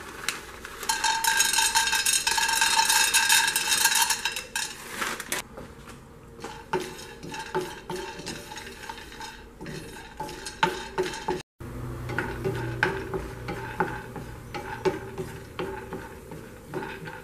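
Pine nuts poured from a plastic bag into a non-stick frying pan, a dense rattle for about four seconds, then a spatula stirring them around the pan with scraping and scattered clicks.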